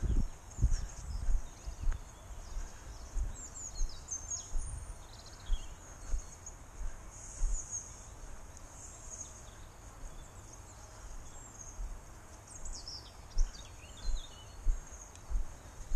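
A person's footsteps on a dirt track, heard as regular low thuds on a body-worn camera, fading in the middle and picking up again near the end. Songbirds chirp and trill in the background.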